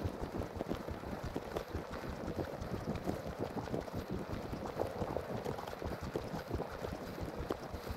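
Footsteps crunching on a thin layer of snow at a walking pace, with a continuous crackle of many small clicks.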